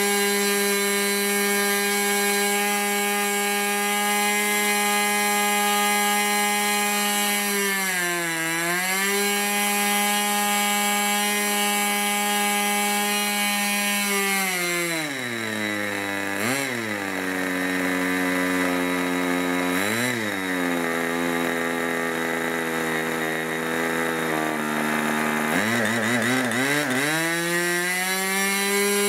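Irvine 40 MkII two-stroke model glow engine with a 10x6 propeller running at high speed, about 12,300 rpm, with the pitch steady apart from a brief dip about eight seconds in. About halfway through it is throttled back to a low speed, blipped up twice, and then opened up again near the end, the pitch sliding down and back up.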